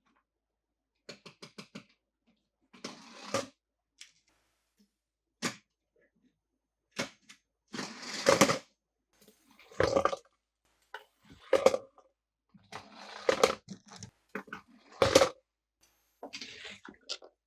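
Toy cars, plastic playset pieces and packaging being handled close up: a quick run of about six small ticks, then rustling, clicks and sharp plastic knocks that come in separate bursts.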